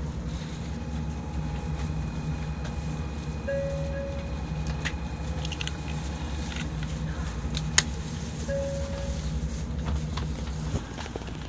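Steady low hum of a stationary Shinkansen train's onboard equipment, heard from inside the car, easing off near the end. A short, high beep repeats about every five seconds, and a single sharp click comes about eight seconds in.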